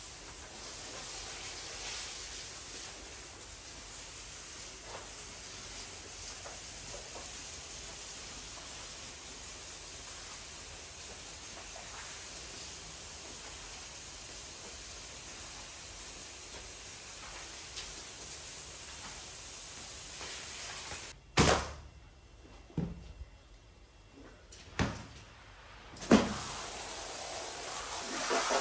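Steady hiss of water rinsing muddy water across a tile floor. It stops about three quarters of the way through, four sharp knocks follow, and a pressure washer starts spraying onto a rug near the end.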